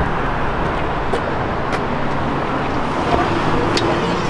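Steady rumble of road traffic and vehicle engines, with a few faint clicks.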